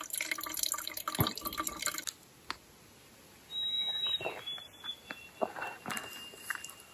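Filtered water trickling and dripping from a handheld backpacking water filter into a bottle. It stops abruptly about two seconds in, leaving faint clicks and a thin high tone.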